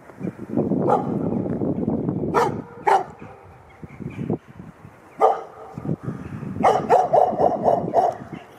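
Stray shepherd-mix dog barking: scattered single barks, then a quick run of about six barks near the end. A low rushing noise sits under the first two seconds.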